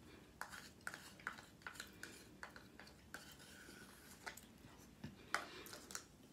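Faint eating sounds: a scattered string of short clicks and taps from mouth and utensils while someone eats.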